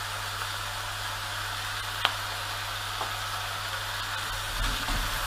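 Diced potatoes sweating in a pot, sizzling steadily and gently, with a light click about two seconds in. Near the end a wooden spoon starts stirring them, adding low knocks and scraping.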